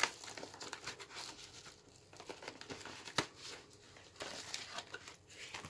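A white padded paper mailer envelope being torn open and crumpled by hand: irregular crinkling and tearing, with one sharp snap a little past three seconds in.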